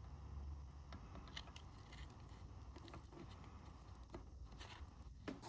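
Near silence: a faint low hum with a few light, scattered clicks.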